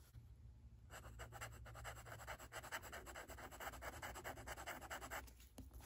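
Fountain pen nib scratching quickly back and forth on notepad paper. It makes a rapid, even run of faint scratchy strokes that starts about a second in and stops near the end.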